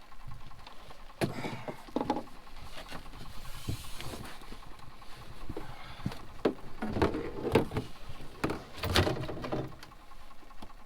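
Irregular knocks, bumps and scuffs of handling in a boat, about a dozen over several seconds, coming thicker and louder in the second half.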